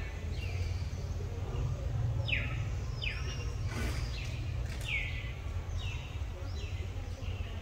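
A bird calling in a series of short falling notes, roughly one a second, over a steady low rumble. A single sharp click about four seconds in.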